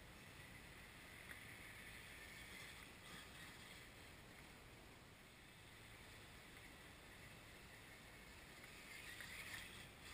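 Near silence: faint, even outdoor noise, a little louder near the end.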